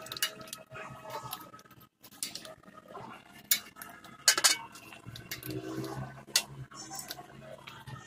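Metal tools clinking and scraping against a steel oil-drain bowl as an oil filter clamp wrench is picked up and fitted onto the oil filter, with a few sharp clinks among lighter rattling.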